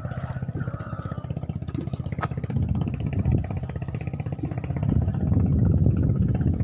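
A small engine running with a fast, even chugging beat, growing louder about five seconds in, with a single sharp click about two seconds in.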